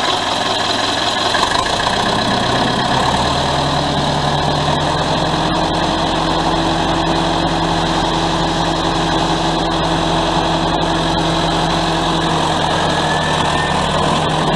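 Allis-Chalmers HD-6 crawler dozer's diesel engine running just after starting, settling into a steady, even idle a few seconds in.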